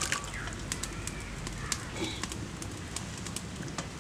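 Chopped fig fruit tipped from a bowl into hot water in a large metal wok, with a splash at the start, then scattered crackles from the wood fire under the wok. Birds call faintly in the background.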